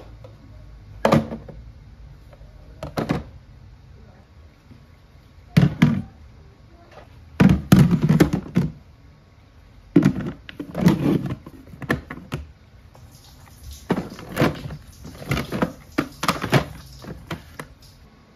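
Plastic food storage containers being set down and pushed into place on a kitchen cabinet shelf: a series of irregular hollow knocks and thunks, some coming in quick clusters.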